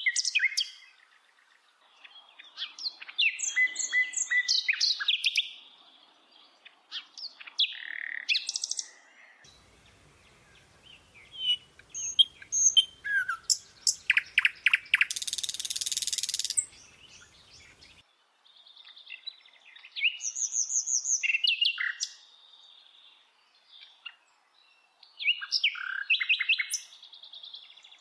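Bird chirping and singing: bursts of short, high chirps and quick trills separated by short pauses, with a harsh buzzy call a little past the middle.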